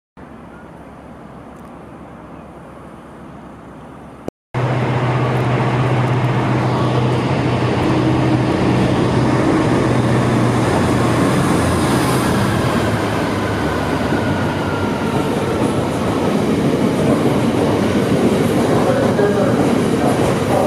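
A few seconds of quieter platform ambience, then a GB Railfreight Class 66 diesel locomotive passes close by at about four seconds in. Its two-stroke V12 engine is running, followed by the steady rolling noise of its loaded hopper wagons going past.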